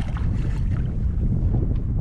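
Wind buffeting the microphone, a dense steady rumble.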